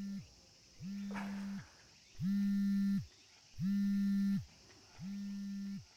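Smartphone vibrating with an incoming call: a low buzz in even pulses just under a second long, about one every 1.4 seconds, four in all, the middle two louder.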